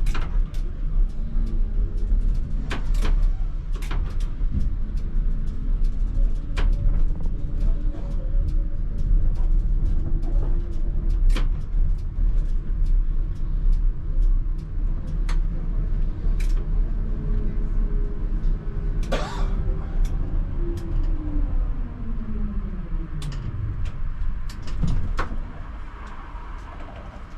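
ČKD Tatra T3R tram running on its track, heard from the cab: a steady low rumble with frequent sharp clicks from the wheels over the rails, and a motor whine. About 20 seconds in the whine falls steadily in pitch as the tram slows, and it gets quieter near the end.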